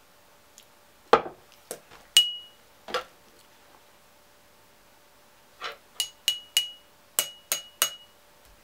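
A plastic pen tapping a glass of water, each tap giving a short clear ting. There are a few duller knocks first, then a single ting, and near the end six quick taps in two groups of three.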